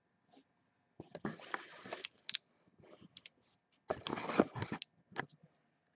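Handling noise: two spells of rustling, about a second in and again near four seconds in, with scattered sharp clicks, as of a sealed card box and its wrapper being picked up and handled.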